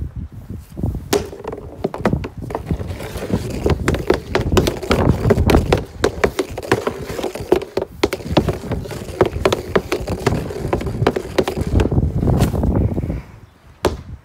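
A hockey stick clacking and knocking against a plastic street-hockey puck and the patio tiles, a quick run of sharp hits. It goes quieter about a second before the end.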